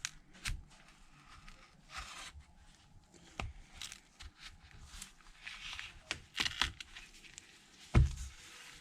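A thin jimmy opening tool scraping and clicking as it is worked between an iPhone 6s Plus screen and its frame, with scattered small clicks and a sharper knock about eight seconds in.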